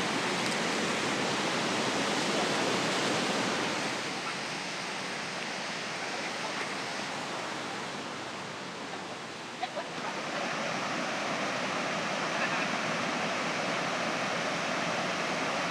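Steady rush of a waterfall, an even noise that eases off slightly in the middle and swells back about ten seconds in, with a faint tap just before.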